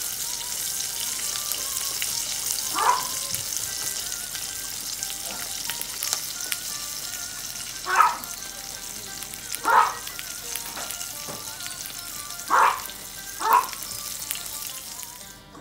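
Pieces of dried snakeskin gourami sizzling as they pan-fry in oil in a nonstick wok over a gas flame, a steady high hiss that drops away just before the end. Several short, louder sounds stand out over the sizzle, a few seconds apart.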